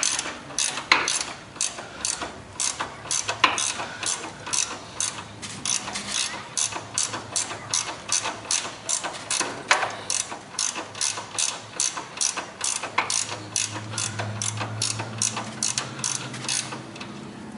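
Ratchet wrench clicking in steady, repeated strokes, about two to three clicks a second, as a bolt on the lawn tractor's steering is worked.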